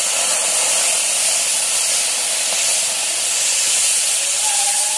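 Wet ground-spice paste sizzling in hot oil in a kadai: a loud, steady hiss.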